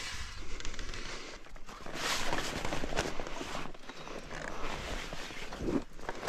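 A person's footsteps, uneven and scuffing, with a louder rush of noise about two seconds in.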